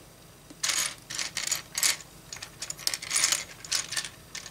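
Small plastic LEGO bricks and pieces clicking and clattering against one another and the tabletop as a hand spreads and sorts through a pile of them, a run of quick irregular rattles starting about half a second in.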